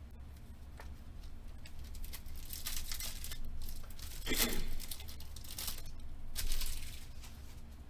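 Foil wrapper of a Panini Select basketball card pack being torn open and crinkled by hand, in several short rustling bursts.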